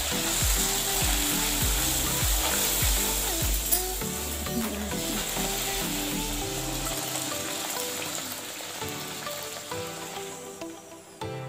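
Puri deep-frying in hot oil in a kadai: a steady sizzle that thins out near the end. Background music with a beat plays over it.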